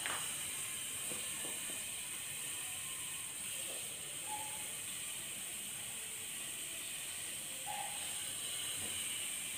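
A steady, even hiss with no rhythm, with two faint short squeaks about four and eight seconds in.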